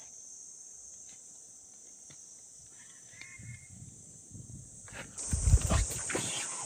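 Insects chirring steadily at a high pitch outdoors, faint at first and much louder from about five seconds in, with a few low knocks and bumps at about the same moment.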